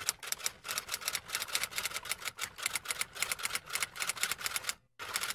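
Typing sound effect: a rapid run of key clicks as text is typed onto the screen, with a brief pause just before the end.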